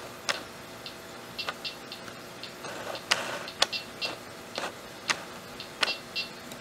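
GoTek floppy drive emulator's speaker imitating floppy head steps while it reads a disk image: irregular sharp clicks mixed with short, high buzzy chirps.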